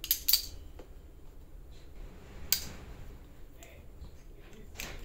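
Sharp clicks and snaps of a red-headed hand tool worked on a pool cue's joint pin: two close together near the start, one about two and a half seconds in, and a louder one near the end.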